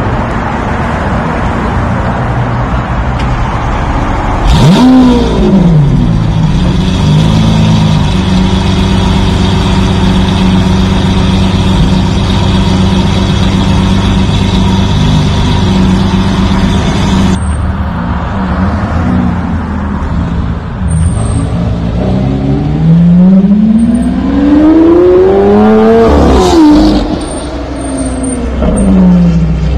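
Lamborghini Aventador V12 blipped once hard, its note shooting up and dropping back, then held at a steady raised idle. After that, a sports car accelerates with one long rising engine note, a sharp crack at its peak, and its pitch falling away near the end.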